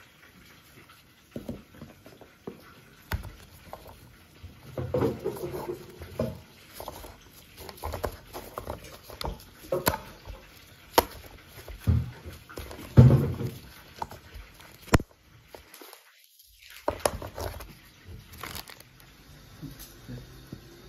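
Hands preparing a sushi roll on a bamboo rolling mat: irregular clicks, taps and rustles of the mat, plastic gloves and knife, with a few louder bumps as the roll is pressed. The sound cuts out briefly about two-thirds of the way through.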